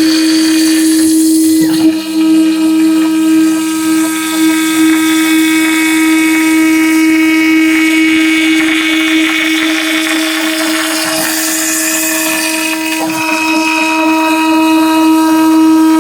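Homemade CNC router's spindle spinning a 5 mm wood end mill through solid wood: a steady high whine with a rough cutting noise that swells and fades as the bit moves along the cut.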